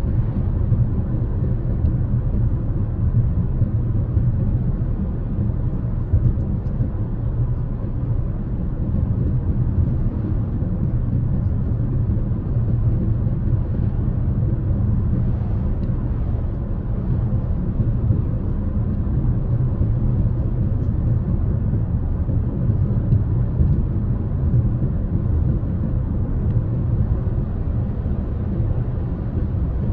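Steady low rumble of tyres and engine heard from inside a car's cabin at highway speed.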